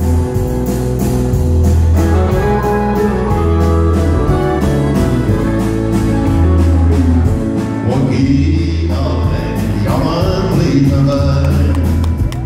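Live country band playing a song on acoustic guitar, keyboard and drums with a steady beat and strong bass. A voice sings over it in the second half.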